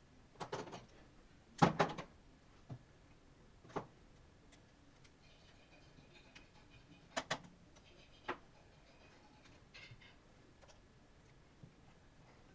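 Scattered clicks and knocks from hand tools and small laptop parts being handled during disassembly, the loudest a sharp double knock about two seconds in, with a brief faint metallic rattle in the middle and again near the end.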